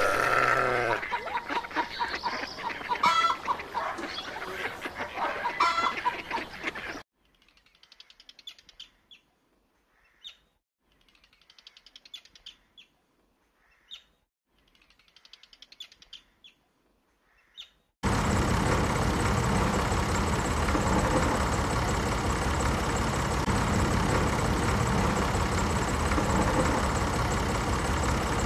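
Birds and fowl calling for about the first seven seconds. Then a very quiet stretch with a few faint short clicks. From about eighteen seconds in, a steady mechanical running noise that does not change.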